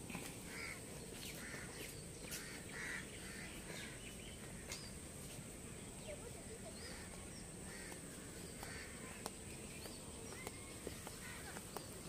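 Crows cawing in a series of short calls, with faint chirps of small birds over a steady outdoor background hiss.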